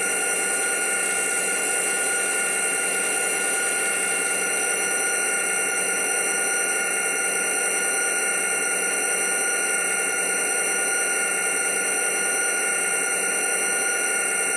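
HO-scale model freight train rolling past: a steady mechanical hum with several constant whining tones, unchanged in loudness.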